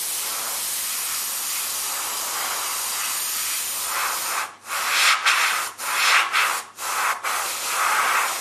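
Airbrush spraying paint: a steady hiss of air for about four seconds, then broken into short spurts about twice a second.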